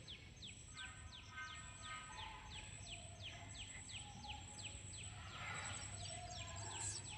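Faint outdoor background: a bird repeats a short downward-sweeping chirp about three times a second, over a steady high-pitched tone.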